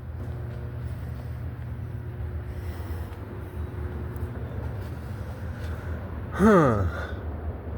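A steady low rumble of background noise, then a man's short "huh" with falling pitch about six and a half seconds in.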